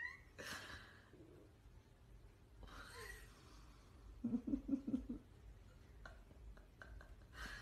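A cat hissing defensively at a dog, three short hisses, with a brief low pulsing growl around the middle.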